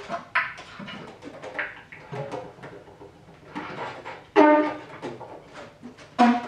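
Bass clarinet played solo in short, separated bursts of notes, with fainter scattered sounds between them; the strongest bursts come about half a second, four and a half seconds and six seconds in.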